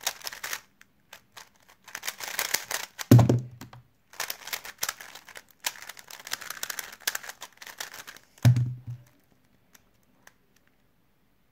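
Stickerless 3x3 speedcube being turned fast by hand: quick runs of plastic clicking and clacking with short pauses. Two heavy thumps come about three seconds in and again near eight and a half seconds. The turning stops about nine seconds in, leaving only a few faint ticks.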